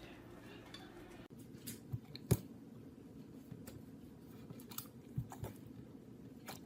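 Faint room noise with a few scattered soft clicks or ticks, the sharpest about two seconds in.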